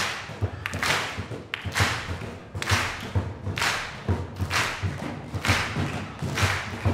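Galvanized metal and plastic trash cans played as drums with sticks and mallets in a steady groove. Low thuds come several times a second, with a brighter hit about once a second.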